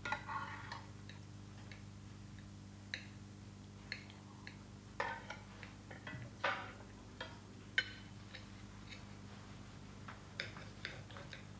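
Cutlery clinking and tapping on plates while people eat: irregular light clicks, roughly one every second or so, over a steady low hum.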